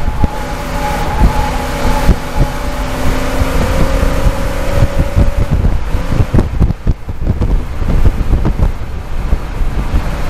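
Inside the cockpit of a Mad Bomber class stock car at racing speed: the engine runs under load, its note rising slowly over the first five seconds or so and then sinking into the noise. Heavy wind buffets the microphone throughout, over a constant rattling and knocking from the car.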